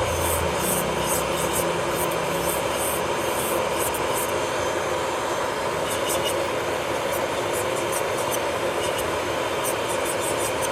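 Electric nail drill (e-file) running at a steady high speed with a constant whine, its bit grinding against the nail with light irregular scratchy ticks.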